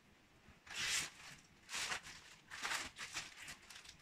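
Clear plastic bag around a backpack crinkling in four short bursts as it is lifted out of a cardboard box.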